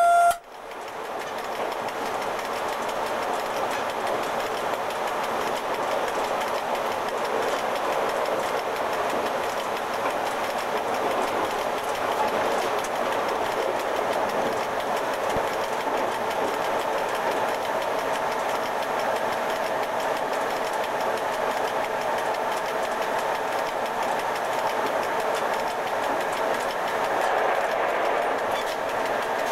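Steady running noise heard from inside the cab of an FS E.656 electric locomotive moving along the track at speed. A steady tone cuts off abruptly at the very start, and a faint steady hum comes in about halfway through.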